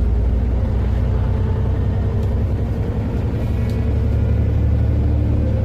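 Alexander Dennis Enviro400 MMC double-decker bus heard from inside, its engine and drivetrain running with a steady low rumble and faint whining tones, one rising slowly in pitch.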